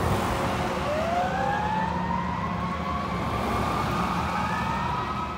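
Fire truck siren starting low about a second in and climbing slowly in one long rising wail, over the steady sound of passing road traffic.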